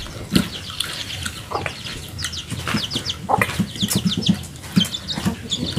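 Chickens clucking in low runs of quick pulses, with many rapid high, falling chirps from birds all through, and a few sharp clicks.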